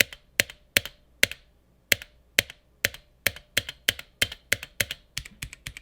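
Single keys on a GamaKay K61 mechanical keyboard with Gateron Yellow switches struck and bottomed out one at a time, slowly at first and then faster, each with a brief ringing ping on bottoming out.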